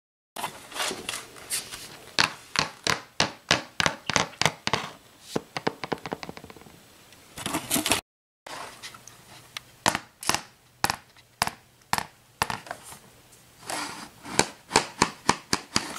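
Horse hooves clip-clopping at a walk, a steady run of sharp knocks about three a second. A short break comes about halfway, and then the knocks go on.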